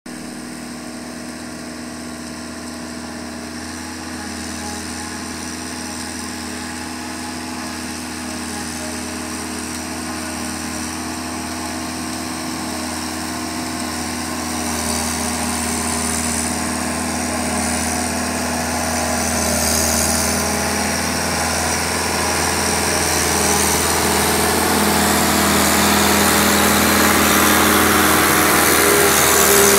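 Fiat 666 tractor's diesel engine running steadily under load while driving a trailed Mengele maize chopper cutting maize for silage. The sound grows steadily louder as the machine approaches.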